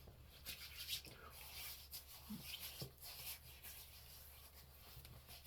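Faint, soft rubbing of hands spreading a few drops of beard oil used as a pre-shave oil, with a few small ticks.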